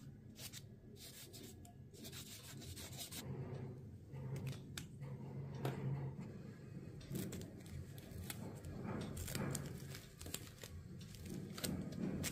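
Rustling, rubbing and crinkling of tissue paper and cloth handled by hands, with scattered small clicks, over a low background hum.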